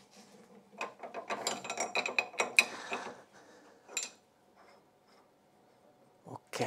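A quick run of light metallic clicks and ticks lasting about two seconds as the revolving live center's head, with its ER40 collet nut, is turned by hand. Then a single click, and near the end a couple of soft knocks.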